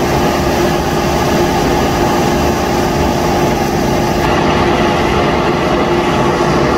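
ADC commercial dryer's blower fan running on a freshly installed used replacement motor: a steady rush of air with a steady hum.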